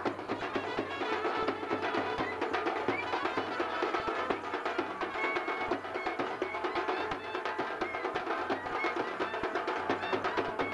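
Live wedding band music: fast, dense drumming with a wind instrument playing short melodic phrases over it.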